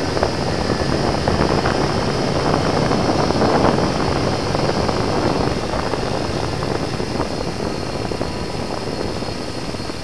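Quad bike pulled by a four-dog sled team along a gravel track: tyres crunching on gravel under a steady low mechanical rumble, easing off slightly near the end.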